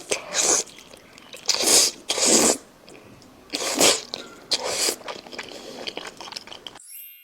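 Close-miked eating: a person biting and chewing food in several loud, wet bursts a second or so apart. Near the end the sound cuts out briefly, with a short electronic tone.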